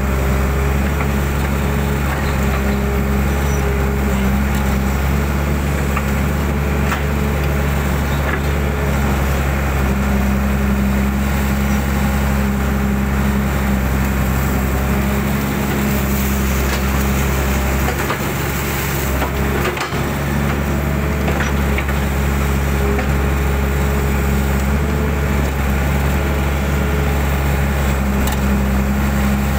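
Hydraulic excavator's diesel engine running steadily under load, heard from the operator's cab, while the bucket digs mud out of a ditch, with a few faint knocks.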